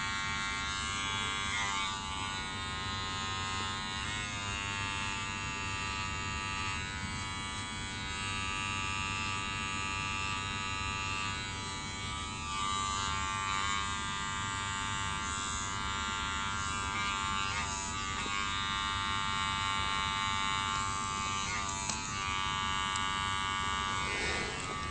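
Electric hair clippers buzzing steadily while cutting a fade, with a few brief shifts in pitch.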